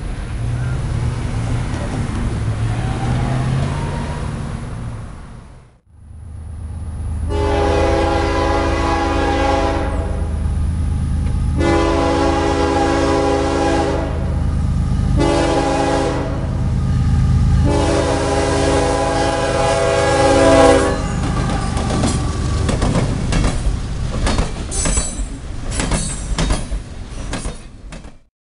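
Diesel locomotive air horn sounding two long blasts, a short one and a long one over the low rumble of a moving freight train. Near the end come rapid, regular clacks of wheels over rail joints. A steady rumble fills the first few seconds and briefly cuts out before the horn.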